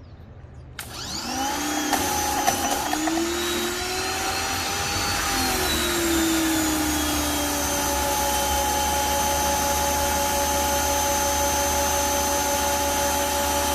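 Hyper Tough 1800 psi electric pressure washer switched on: its motor and pump start about a second in with a rising whine, waver in pitch for a few seconds, then run steadily.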